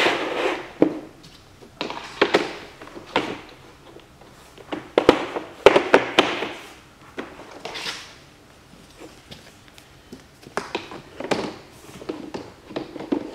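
Mohawk Expand interlocking plastic floor tiles being slid over the floor and pressed together by hand: irregular knocks and clicks as the edges are pushed home, with short scraping swishes between.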